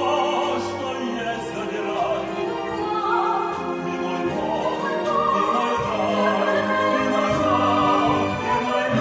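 Operatic singing over orchestral accompaniment: a voice holding and sliding between notes over sustained instruments.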